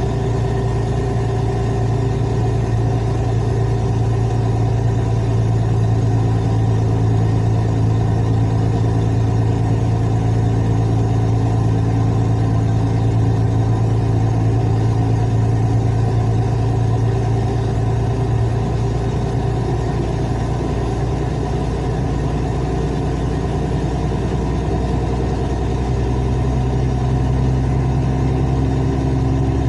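Truck's diesel engine running steadily, its pitch shifting slightly near the end.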